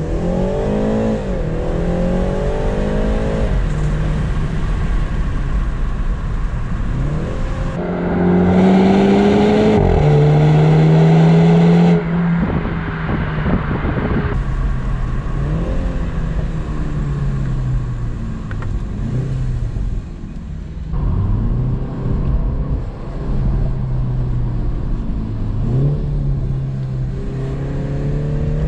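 2020 BMW 330i's 2.0-litre turbocharged four-cylinder through its stock exhaust, pulling through several accelerations: the pitch climbs, drops at each upshift, and falls away as the car slows. The loudest stretch, about eight to twelve seconds in, rises and then holds at a steady pitch before cutting off sharply.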